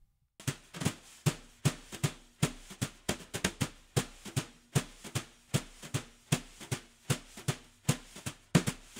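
Outro background music built on a steady drum beat, starting about half a second in, with about two to three hits a second and extra hits between the main beats.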